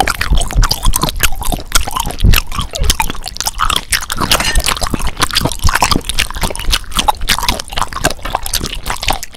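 Eating sounds of steak being bitten and chewed: a fast, uneven run of wet smacks and crunches.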